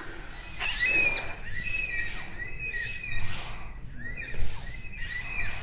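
A group of birds calling in a steady chatter of short, repeated chirping notes.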